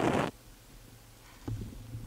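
Methane escaping through a hole in lake ice and burning as a small jet of flame, a steady hissing rush that cuts off suddenly about a third of a second in as the flame goes out. After it, quiet with a few faint low knocks.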